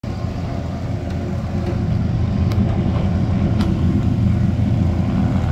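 Low, steady rumble of several high-performance powerboat engines running at slow speed, growing slightly louder.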